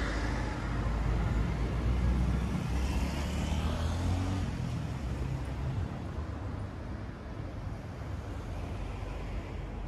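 A car passing close by on a city street, its engine and tyres loudest about two seconds in, then fading away into a lower hum of traffic.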